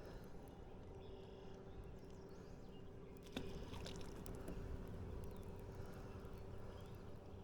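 Faint steady hum with scattered light clicks and knocks on a small fishing boat, and a sharper knock about three seconds in.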